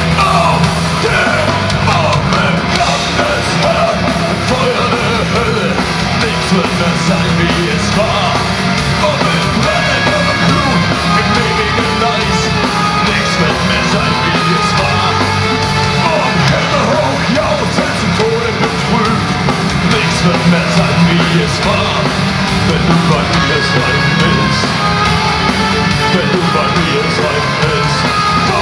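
Metal band playing live at full volume: distorted electric guitars, bass guitar and a drum kit, with a singer's vocals over the top, heard through a concert hall's PA.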